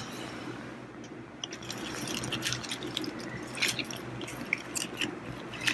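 Light clicks and clinks of small greasy metal gearcase parts being handled and set down, scattered irregularly over a steady low hum.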